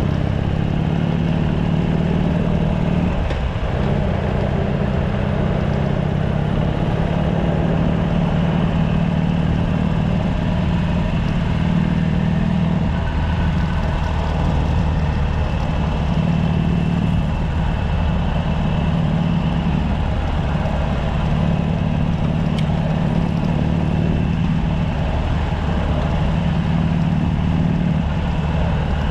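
Harley-Davidson Sportster SuperLow 883's air-cooled V-twin running steadily through its stock exhaust, with a continuous hiss over the low engine note. The note dips briefly a few seconds in and again near the middle.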